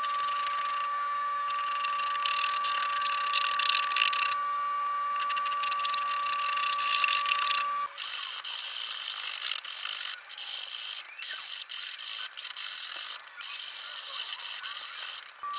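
Shinto-style saw-blade rasp scraping across a cherry handle blank: a coarse rasping with each push stroke. The strokes run almost unbroken at first, then come as separate strokes with short pauses in the second half. A steady high tone runs under the first half and stops about eight seconds in.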